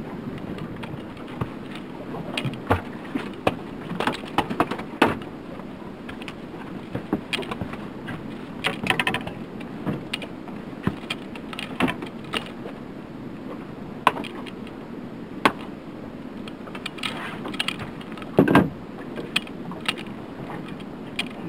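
Fishing tackle and gear being handled in a small aluminum boat: scattered clicks, clinks and knocks, with a quick run of rapid ticks about nine seconds in and a louder clatter near the end, over a steady noise of wind and water.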